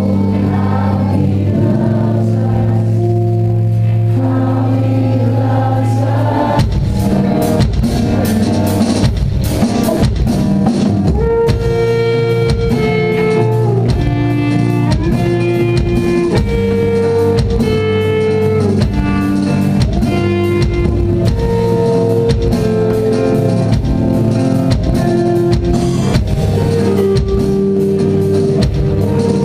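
Live metalcore band playing loudly: held keyboard chords for about the first six seconds, then the drum kit and guitars come in heavily under a repeating melodic line.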